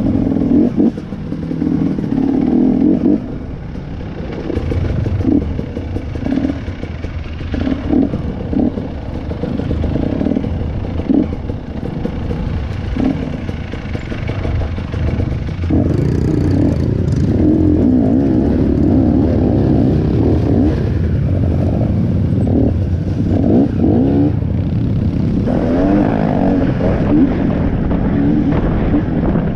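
Dirt trail motorcycle engine running and revving up and down while riding over a rough, rocky track, with rattling and knocks from the bike over the bumps. The engine gets louder about halfway through, its pitch rising and falling with the throttle.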